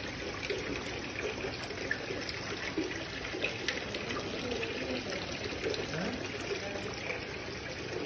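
Water falling in a yellow sandstone garden fountain: thin streams pouring from clay pots and a central fall splashing into the stone basin, a steady trickling and splashing.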